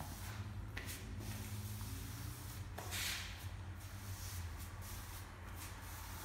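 Rubber grout float sweeping wet grout across floor tiles, a soft wet scraping with one louder swish about three seconds in, over a steady low hum.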